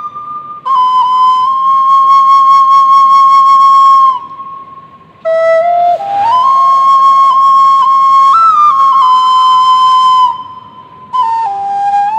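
Bamboo flute playing a slow melody of long held notes, in phrases broken by short pauses, with small steps and slides in pitch between notes.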